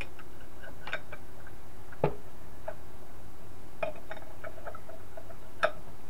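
Metal parts of a disassembled reciprocating compressor clicking and clinking as a plate is fitted onto the top of the cylinder: a handful of light, irregular ticks, the loudest about two seconds in.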